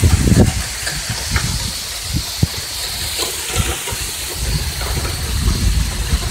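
Hurricane wind and heavy rain: a steady hiss of rain with uneven gusts of wind rumbling on the phone's microphone.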